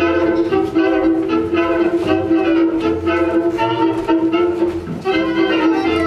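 Instrumental waltz music with a held note and a steady repeating beat under the melody. It briefly dips about five seconds in, then carries on.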